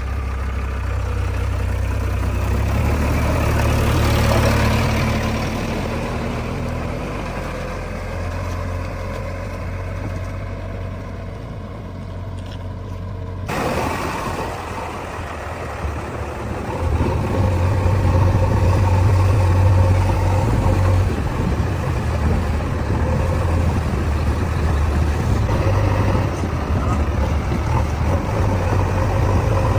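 Diesel engines of a JCB 3DX backhoe loader and tractors running steadily. The sound changes abruptly about halfway through, and the engine note grows louder from a little past halfway as the machine works under load.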